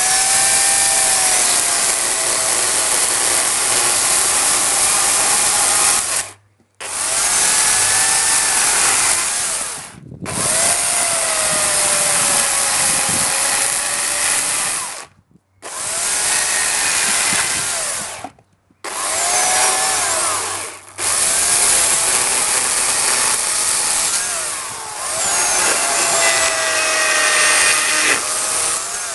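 Dolmar electric chainsaw cutting into a beech trunk: the motor's whine and the chain tearing through the wood, its pitch wavering as the cut loads it. It runs in bursts of a few seconds and cuts out abruptly about five times as the trigger is let go.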